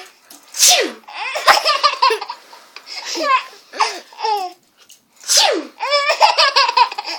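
A person sneezes twice, each sneeze a loud falling "achoo", and a baby answers each one with bursts of hard, choppy laughter.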